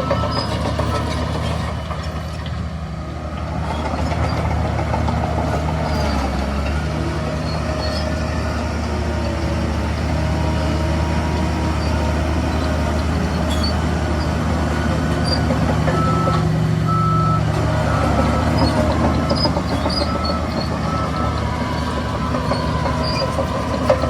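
Heavy diesel engines of dump trucks and earthmoving machines running steadily under load, with a reversing alarm beeping in short repeated tones at times.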